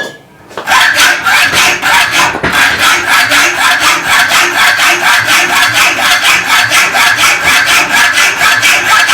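Quick, even back-and-forth rasping strokes of a hand saw or file working a piece for the welder's electrode leads, about five strokes a second, starting about half a second in after a short pause.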